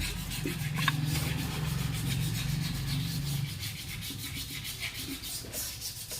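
Yamaha SZ-RR's air-cooled single-cylinder engine idling steadily after the repair of its engine noise. It is a little louder for the first three seconds or so, then settles.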